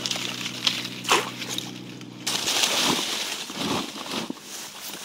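Shallow water sloshing and splashing as a fish trap is handled, with a few sharper splashes. A steady low hum runs underneath and cuts off a little after two seconds in.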